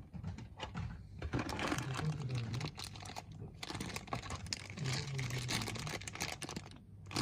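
Plastic packaging and small plastic parts of a car alarm kit being handled: a dense run of irregular clicks, crinkles and rustles.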